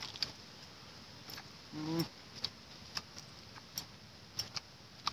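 Eating sounds: irregular sharp mouth clicks and smacks, about a dozen over the stretch, with a short low hum of a voice about two seconds in.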